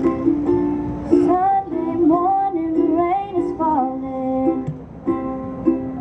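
Ukulele strummed in steady chords, with a woman's voice singing a short, gliding melodic line over it in the middle.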